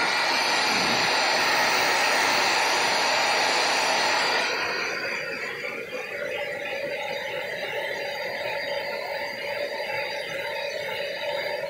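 Hand-held hair blow-dryer running, blowing air with a steady rush and a faint whine. It is louder for the first four seconds or so, then drops a little and keeps running.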